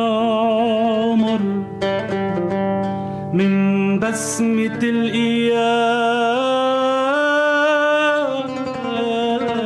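Male voice singing a slow Arabic mawwal, long held notes with a wide vibrato that slide between pitches, accompanied by an oud.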